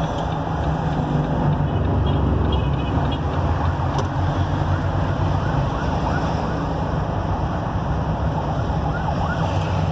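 Steady low engine drone and road noise heard inside a truck cab moving with traffic.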